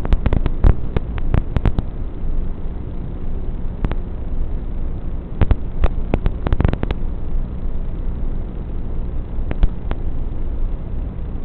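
Steady hiss with irregular sharp crackles and clicks, bunched about halfway through: static on an analog FPV video-link DVR recording.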